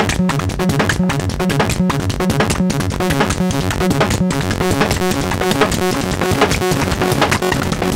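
Make Noise Strega synthesizer playing a rhythmic electronic pattern: arpeggiated pitched notes over sharp clicky percussion made from its clock noise and feedback.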